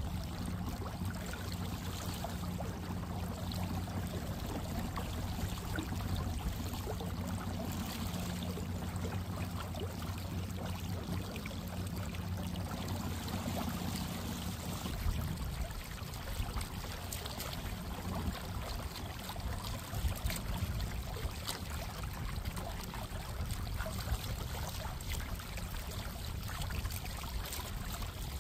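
Water trickling and splashing along a kayak hull under way, over the steady low hum of an electric trolling motor. The hum drops away about halfway through, leaving mostly the water.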